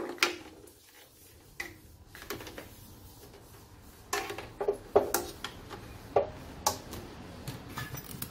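Rubber power cord being coiled around the handle of an electric cut-off saw: scattered light knocks and rubs of the cord and hand against the saw's plastic and metal body, busiest in the second half.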